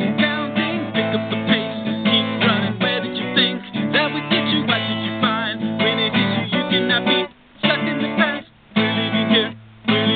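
Acoustic guitar strummed steadily, then a few separate chords with short breaks between them near the end: the closing chords of a song.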